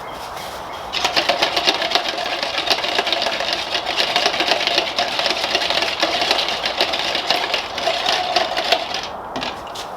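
A small electric power tool runs for about eight seconds with a steady whine and a busy rattle. It starts suddenly about a second in and winds down near the end.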